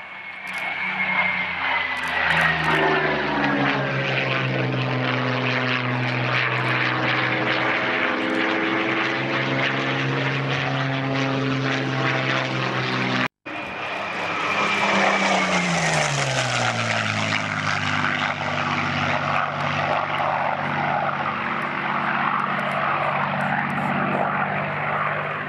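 Rolls-Royce Merlin 500 V12 of a Hispano HA-1112 Buchón flying past, its engine note falling in pitch as it goes by. After a sudden break about 13 seconds in, it passes again with the note falling once more.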